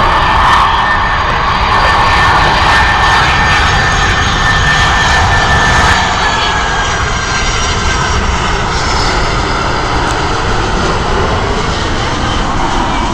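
Jet airliner on its landing approach passing close by: loud, steady engine noise with a high whine that dips slightly in pitch about six seconds in as it goes past.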